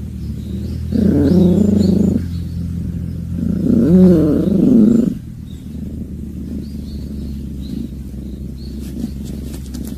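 Domestic cat growling in two long, wavering yowls over a mouse it has caught, the first about a second in and the second near the middle: a warning growl of a cat guarding its prey.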